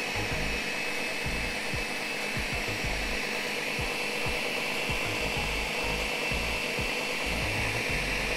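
Countertop blender running steadily at high speed, whipping feta cheese and olive oil into a thick dip, with a constant high-pitched motor whine.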